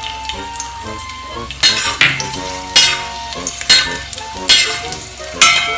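Raisins and cashew nuts sizzling in hot ghee in a brass uruli, with a steel spoon stirring and scraping across the pan about once a second.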